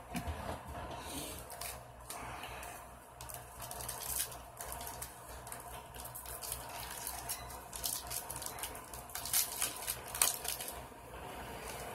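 Foil wrapper of a trading-card pack being torn open and crinkled, with the cards slid out and handled. The crackling comes in short irregular bursts, loudest near the end.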